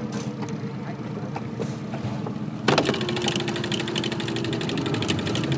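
Small outboard motor on an aluminium skiff running steadily at trolling speed, a low hum. About two and a half seconds in the sound changes abruptly to a brighter running with a steady tone and fast ticking over it.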